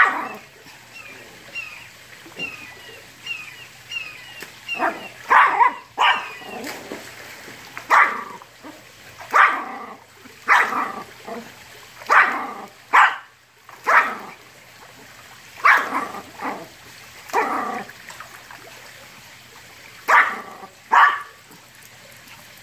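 Yorkshire terrier barking over and over at a pool jet, single barks about a second apart with a few longer pauses.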